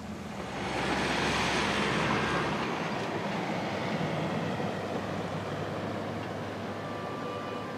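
A van driving past: a rush of engine and road noise swells about a second in, then slowly fades away.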